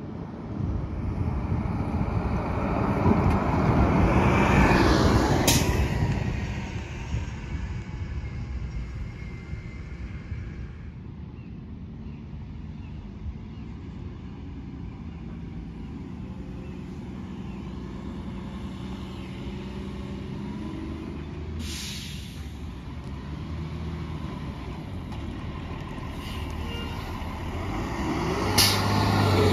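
Diesel city transit buses driving past on the road, engines running and tyres on asphalt, the sound swelling as each bus comes close. A few short, sharp hisses from air brakes cut through.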